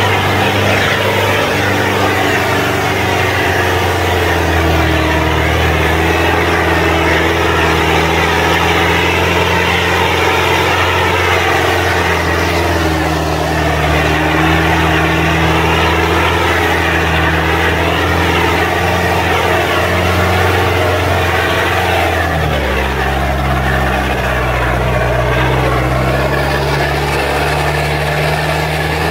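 Engine of an open-topped off-road 4x4 running steadily as it drives along a rough dirt track, heard from inside the open cab. Its note shifts to a lower pitch about three-quarters of the way through.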